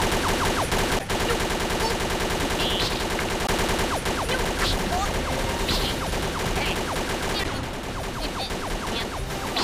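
Animated gunfire sound effects: guns firing in a rapid, continuous volley of shots, mixed with short falling whistles.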